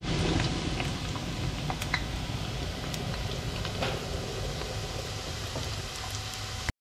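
Potato sticks deep-frying in hot oil in a wire fry basket: a steady sizzle full of small crackling pops, cutting off abruptly near the end.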